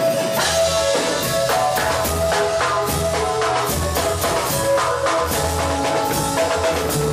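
Live band music: a drum kit keeps a steady beat with cymbal hits and a pulsing bass drum, under held melody notes.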